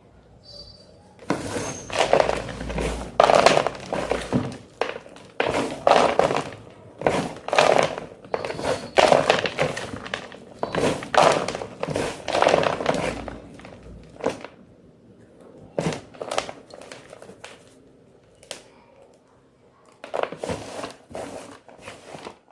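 White gym chalk being crunched, in a quick run of crisp crunches lasting about thirteen seconds. After that come a few scattered crunches and a short final cluster near the end.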